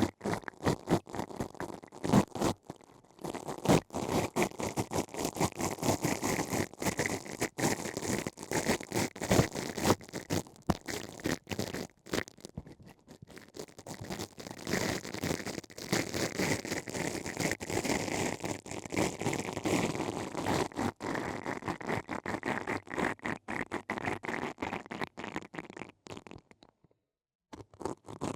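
Ear-cleaning ASMR trigger sounds: a tool scratching and scraping very close to the microphone in dense, irregular strokes, stopping briefly near the end.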